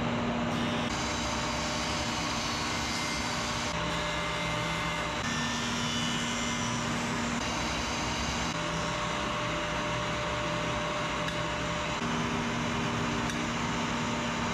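Horizontal boring machine running steadily while drilling dowel holes into the edges of pine 1x6 boards. Its hum changes a few times as the boards are fed in and drawn back.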